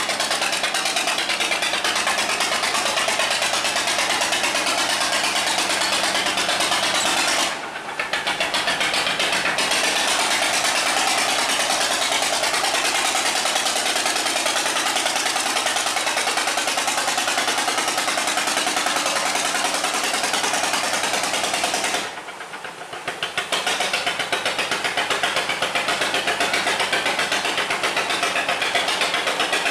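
Wooden riverboat's diesel engine running hard with a rapid, even pulsing beat, driving the boat against a strong current through a sluice gate. It eases off briefly twice, about a quarter of the way through and again for a little longer about three quarters of the way through.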